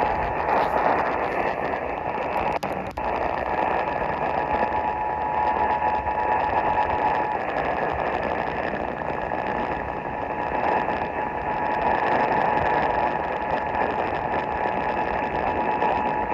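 Emergency Alert System two-tone attention signal, a steady dual tone, heard through heavy radio static. The tone drops out for about three seconds midway, then comes back.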